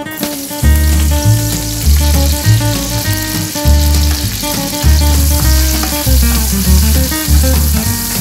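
Chopped garlic and onion sizzling in hot olive oil in a stainless steel skillet as they are stirred. Background music with a steady bass line plays over it.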